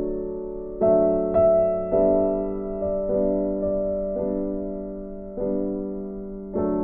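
Background music: soft electric piano chords, struck every second or so and left to ring and fade.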